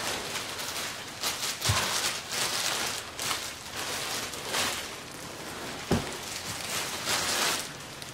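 Rustling and handling noise from furniture being shifted by hand, with two dull thumps, one about two seconds in and one near six seconds.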